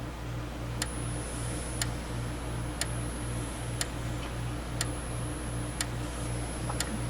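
Gentex Commander 3 remote strobe (GES3-24WR) flashing once a second, each flash giving a sharp click, with a thin high-pitched whine running underneath.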